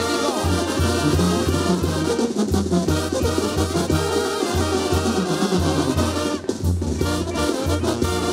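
Mexican banda brass band playing an instrumental passage live: trumpets, trombones and clarinets over a sousaphone bass line that pulses on the beat. There is a brief break in the playing a little over six seconds in.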